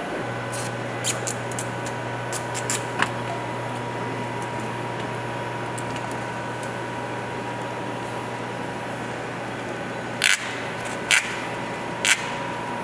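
Steady hum and hiss of cleanroom ventilation and bench equipment, with a few light clicks early on and three sharper clicks about a second apart near the end, typical of small parts and tools being handled on the bench.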